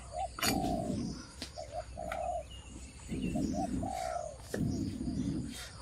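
A dove cooing over and over in the same phrase, two short notes then a longer one, about every two seconds. Between the calls come louder low puffs of someone blowing on a wood fire, and now and then a sharp tap of a cleaver on a cutting board.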